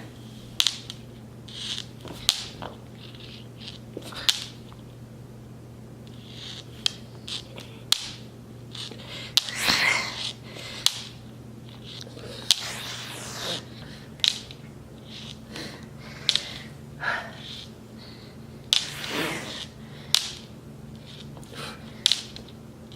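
A person breathing out in short, sharp puffs about every one to two seconds while doing a set of push-ups, with occasional sharp clicks, over a steady low hum.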